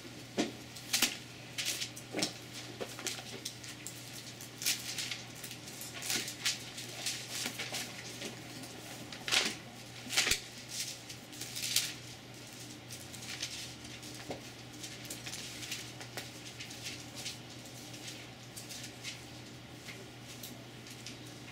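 Thin Bible pages being leafed through and turned by hand: a run of short, soft papery rustles and flicks, busiest in the first half and sparser later.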